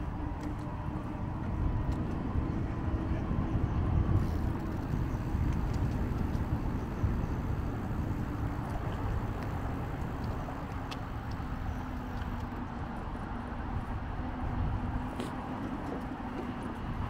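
Wind buffeting on the microphone and wheel rumble from riding along a paved path, with a steady low hum underneath.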